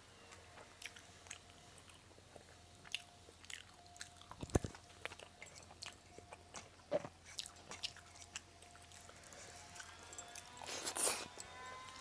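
Close-up eating sounds: chewing and biting food, with wet mouth clicks and smacks. A single low thump comes about four and a half seconds in, and a louder crunchy burst near the end.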